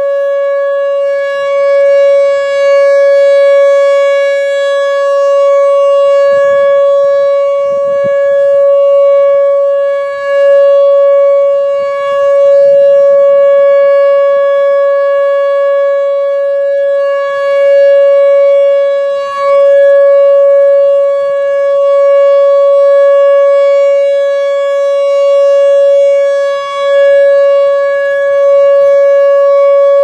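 Whelen Vortex R4 rotating electronic warning siren sounding a loud steady single-pitch tone, the alert signal. It swells and fades in loudness as its four-horn head turns toward and away from the listener.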